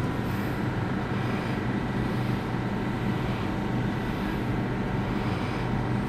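Steady low hum of a stationary Waratah electric train's onboard equipment, heard inside an empty passenger carriage, with a few level tones under the even noise.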